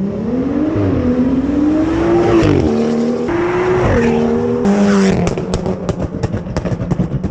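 Car engine revving hard, its pitch climbing and falling several times over about five seconds, then a rapid run of exhaust pops and crackles.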